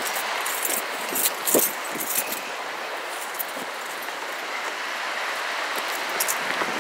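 Footsteps crunching on a gravelly dirt trail, with irregular scuffs and knocks, over a steady rush of running water from a creek.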